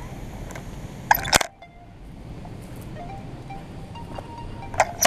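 Steady low rushing noise with sharp metallic clinks and knocks about a second in and again near the end.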